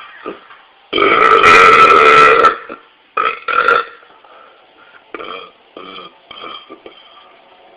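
A man belching: one long, loud burp about a second in, lasting over a second and a half, followed by two shorter burps in quick succession.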